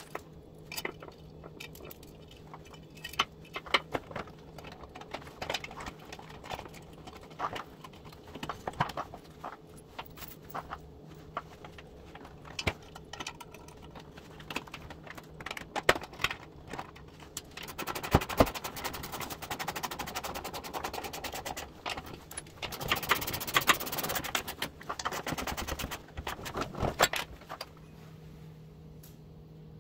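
Metal hardware clinking and tapping as a bent metal bracket and its bolts and washers are handled and fitted. In the second half a socket ratchet clicks rapidly in runs as the bolts are tightened.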